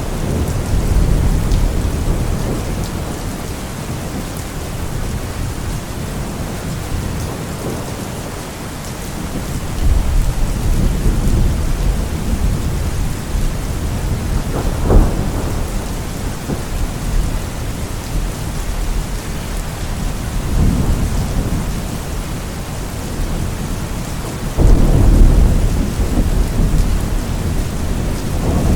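Thunderstorm: steady rain with rolling thunder, deep rumbles swelling about ten seconds in and again near the end, and a sharp crack around the middle.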